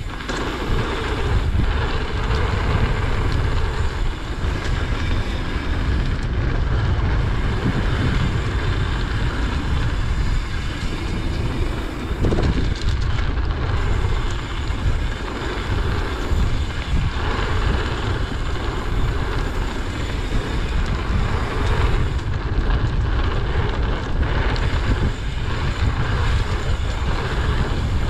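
Mountain bike riding fast down a packed-dirt trail: steady wind rush over the action camera's microphone with the rumble of the tyres rolling over the dirt.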